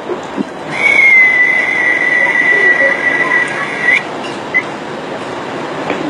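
A high, whistle-like ringing tone, played as a healing sound, sets in just under a second in and holds for about three seconds, sliding slightly down in pitch, then cuts off suddenly; a short chirp follows.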